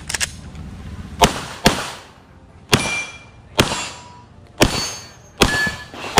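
Glock 17 9mm pistol fired about six times: a quick pair, then single shots about a second apart. Several shots are followed by a short metallic ringing from steel targets being hit.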